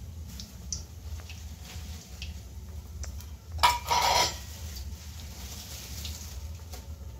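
Kitchen handling while potato chops deep-fry in a kadai: light clicks of utensils over a low steady hum, with a brief loud clatter and rustle about halfway through.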